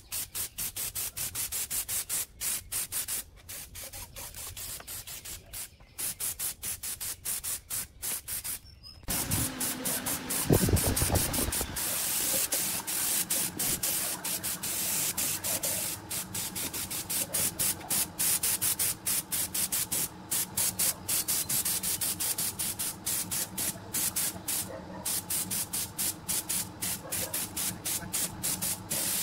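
Compressed-air spray gun hissing as it sprays paint, the trigger worked in many quick short bursts. About ten seconds in a low rumble comes in, the loudest moment, and it settles into a steady low hum under the spraying.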